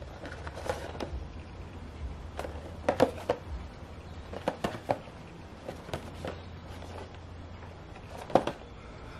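Light clicks and rustles of a boxed vinyl Funko Pop figure's cardboard box with its plastic window being handled and turned over in the hands, in scattered short strokes, over a low steady hum.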